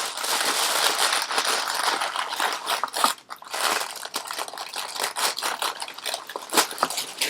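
Paper packaging being unwrapped by hand, crinkling and rustling continuously with many small crackles.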